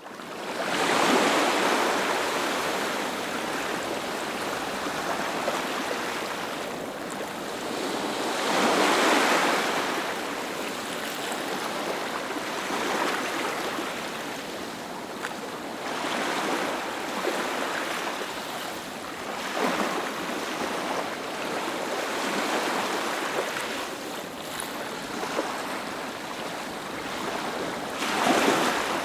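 Ocean surf: waves breaking one after another, the sound of rushing water swelling and ebbing every few seconds. The loudest breakers come about a second in, around nine seconds in, and near the end.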